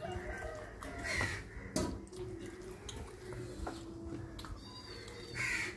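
Crows cawing twice, about a second in and again near the end, over short clicks and smacks of someone eating with their hands.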